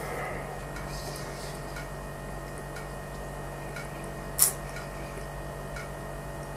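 Quiet room tone: a steady low hum under an even hiss, with one sharp click a little past the middle.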